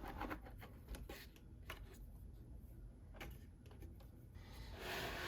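Faint, scattered small clicks of an M4 screw being driven by hand into a router hose adapter, with a soft hiss near the end.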